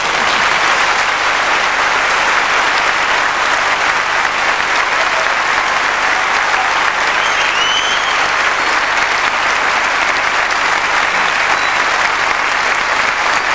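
A large audience of hundreds applauding steadily after a speech, the clapping swelling up and then holding at a constant level.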